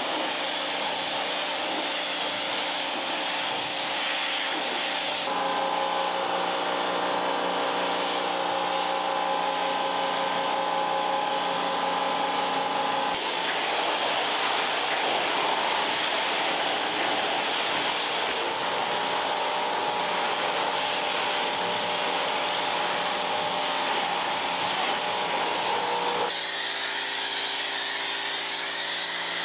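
Vacuum cleaner running steadily with a whirring motor tone. The pitch of the tone jumps abruptly about five seconds in, again midway and again near the end.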